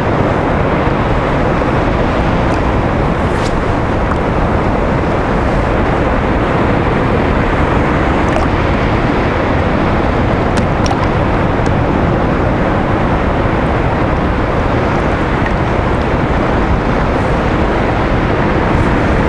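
Steady rushing of wind and choppy sea around a sea kayak in rough conditions, with a few faint ticks.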